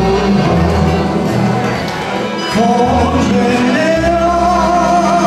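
Live sevdalinka played by a band of accordions, guitars and drums, with a man singing; the music dips briefly about two seconds in, then picks up again with a held, wavering melody.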